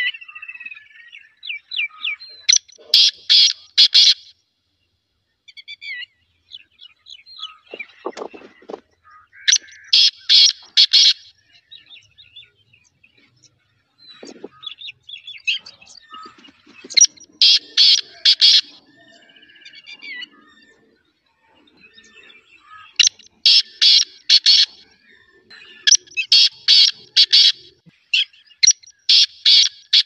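Black francolin (black partridge) calling: loud phrases of four or five rapid, evenly spaced notes, repeated six times, with fainter bird chirps between them.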